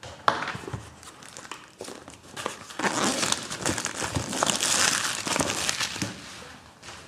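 Packaging crinkling and tearing as a product box is opened, with many small rustles and clicks; busiest from about three seconds in to about six.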